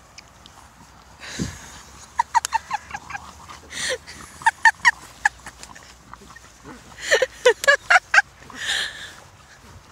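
A person laughing hard off camera in high, wheezing, honk-like bursts of quick "ha-ha" notes, broken by gasping breaths in between.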